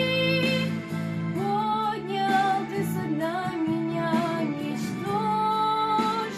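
A young girl singing a worship song to instrumental accompaniment, with long held notes in the melody.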